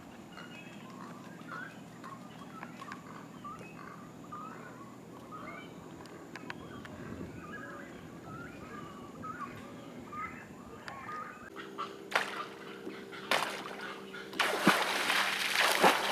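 Many short bird calls chattering over a quiet coastal background. About twelve seconds in, a steady low motor hum comes in, then loud rustling noise near the end.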